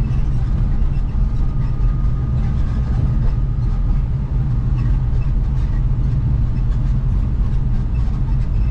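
Steady in-cabin drone of a 1973 Ford Mustang Mach 1 cruising at road speed: the 351 V8 and the tyre noise make a deep, even rumble.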